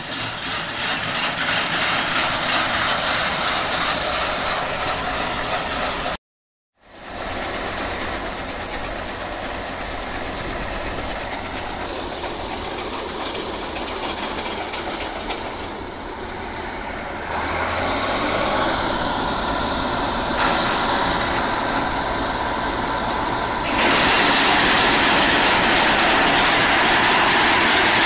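Bizon Z056 combine harvester running at work, its diesel engine and threshing machinery making a steady loud mechanical din. The sound drops out for a moment about six seconds in and is loudest over the last few seconds, close to the cutter header.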